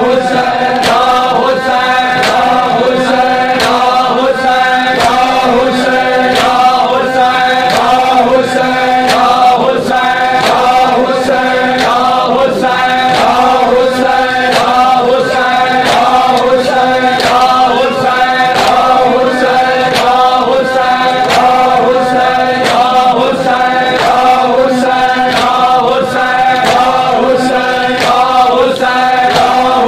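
A crowd of men chanting a Muharram lament (nauha) together, with matam chest-beating slaps keeping an even beat of about two strikes a second.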